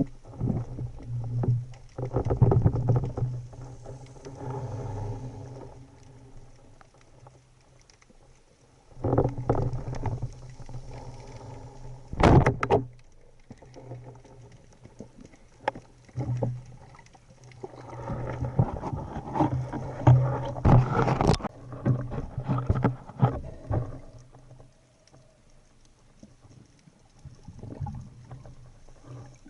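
Water sloshing and bubbling around a spearfisher's camera as he swims, in loud bursts a few seconds long with quieter stretches between.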